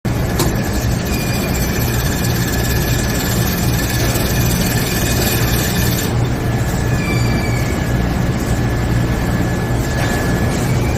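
Motorized overhead door running: a steady electric-motor hum, with a few faint high squeaks over it.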